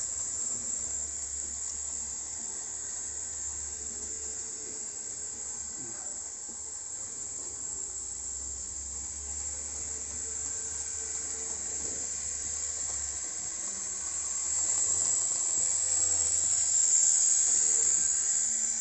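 Piko BR64 model tank locomotive running with its train on the layout track: a steady whirring hiss of the small electric motor and wheels on rail, growing louder about fifteen seconds in.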